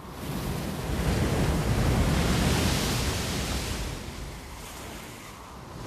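Rough sea with wind: a big wave surges and breaks, swelling over a couple of seconds and then fading, with a second surge starting at the end.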